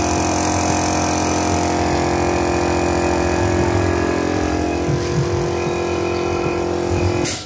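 A 1 hp air compressor running steadily with an even mechanical hum, cutting off near the end with a brief hiss.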